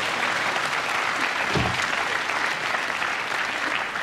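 Studio audience applauding, a dense even clatter of clapping.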